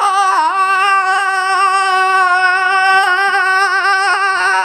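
A boy's voice holding one long sung note, steady in pitch with a slight waver and a small dip about half a second in.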